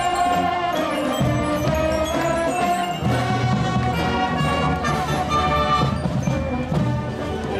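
Marching band playing a tune as it marches, flutes carrying the melody over a steady beat.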